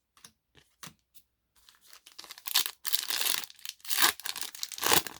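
A foil booster pack of trading cards being torn open and its wrapper crinkled: a few light clicks, then from under two seconds in a rising run of tearing and crinkling.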